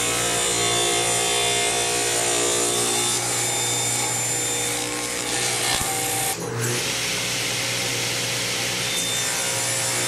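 Table saw running and cutting eastern red cedar boards: a steady motor hum under the noise of the blade through the wood, with a brief change about six and a half seconds in.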